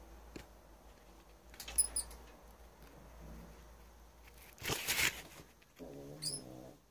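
Mouse squeaking: short high-pitched squeaks about two seconds in and again near the end, with a brief rustling scuffle just before the end and a low, drawn-out pitched sound near the end.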